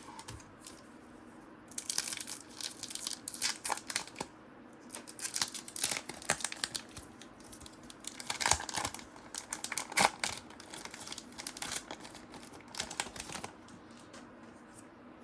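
Crinkling and rustling of trading cards and their paper wrapper being handled and torn, in irregular sharp bursts. It starts about two seconds in and stops a little before the end.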